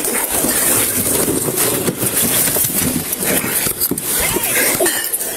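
Body-worn camera microphone rubbing and scraping against clothing during a close struggle, a loud, hissy rustling noise.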